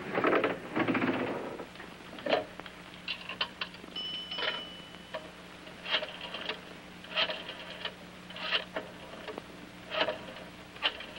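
A coin pay telephone being used: after a shuffling noise at the start, a coin rings the phone's bell about four seconds in. Then the rotary dial is turned and clicks back for several digits, about one every second or so.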